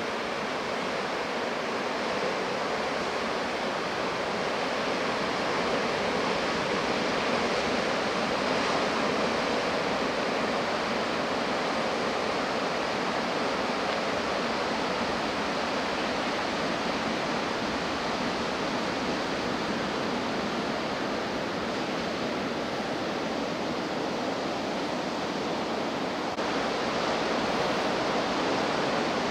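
Ocean surf breaking along a beach, a steady rushing wash of waves.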